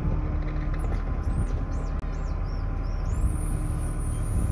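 Rock-crawler engine running steadily with a low rumble. A run of high squeaking chirps comes about a second in, and a thin high whine starts near the end.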